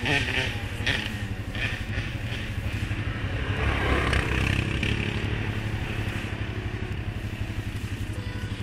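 Suzuki KingQuad 750 ATV idling with a steady rapid pulse while another ATV rides past close by, its engine sound swelling loudest about four seconds in.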